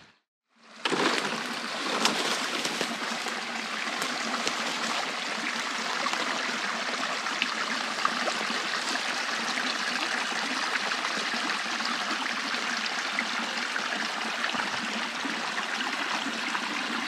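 Small creek flowing, a steady rush of running water that starts about a second in.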